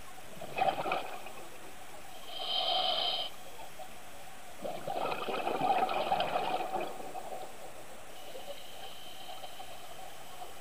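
Scuba diver breathing through a regulator underwater: a short hissing breath in about two seconds in, then a longer bubbling, gurgling exhale. A steady underwater hiss runs beneath.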